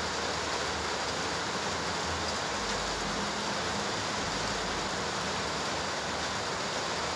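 Steady, even hiss with no distinct knocks or clicks.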